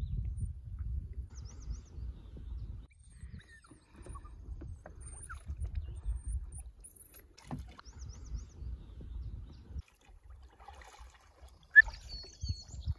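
Kayak paddling on still water: irregular low rumbling and swishing of paddle and water, with a few faint high chirps above it. A single sharp knock near the end, like a paddle striking the hull.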